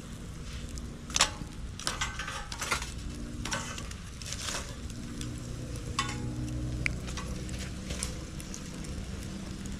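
Bonfire burning, crackling and snapping, with several sharp pops (the loudest about a second in) over a low steady rumble.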